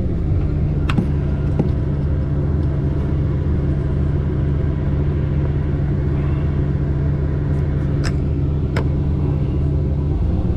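Tigercat 610E skidder's diesel engine running at a steady speed, a low even drone. A few sharp clicks stand out over it, two about a second in and two near the end.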